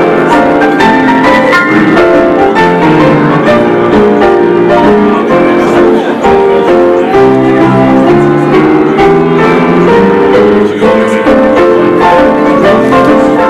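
Piano music played steadily, a flowing run of notes.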